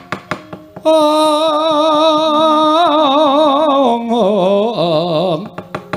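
Javanese wayang kulit suluk mood song: one long sung note with wide vibrato that steps down in pitch twice. A run of sharp knocks comes just before and just after it.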